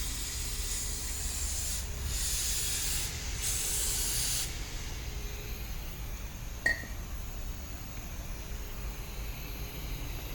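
Spray hissing in a few bursts during a brake job, lasting about four and a half seconds, over a steady low rumble. About six and a half seconds in there is a single sharp metallic click with a brief ring.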